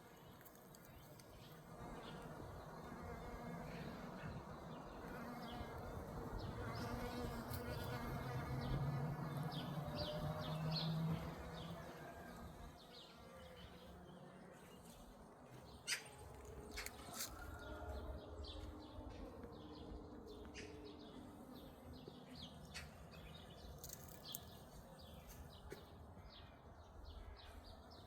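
A bee buzzing close by while foraging on blossoms: a low hum that grows louder over about ten seconds, then fades away, with a few short bird chirps afterwards.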